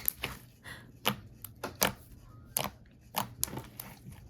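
Slime being squished and folded by hand, giving a string of sharp wet clicks and pops at irregular intervals.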